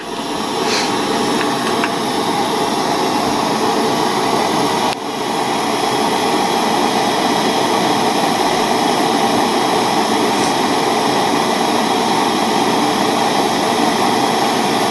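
Small soldering torch flame hissing steadily as it heats a silver-solder joint on a metal eyeglass frame's hinge barrel until the metal glows red, with a brief dip about five seconds in.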